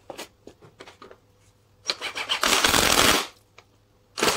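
Impact wrench running the top nut down onto a VW T5 coilover strut: two loud bursts of rattling hammering, the first lasting over a second about two seconds in, the second starting near the end. Light clicks and knocks of parts being handled come before.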